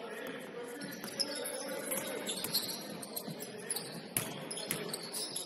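Basketball game on a hardwood gym court: the ball bouncing, short sharp squeaks and knocks from play, and voices in the background, all echoing in the large hall.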